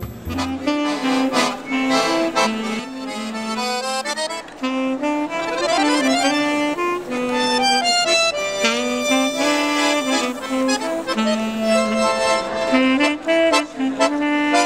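Accordion and saxophone playing a tune together as a duo, with held melody notes over chords.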